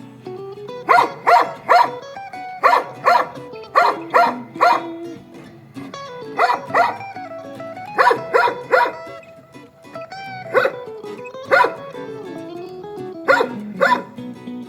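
A dog barking repeatedly in quick runs of two or three barks, with short pauses between the runs. Background music plays underneath.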